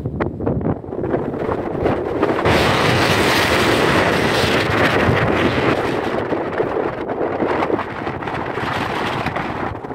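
Wind buffeting a phone's microphone: a loud, gusty rush that blows harder from about two and a half seconds in and eases off near the end.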